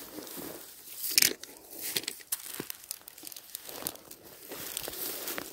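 Irregular rustling and crackling of forest undergrowth (twigs, moss and leaf litter) being pushed through and picked at, with a louder burst of crackles about a second in.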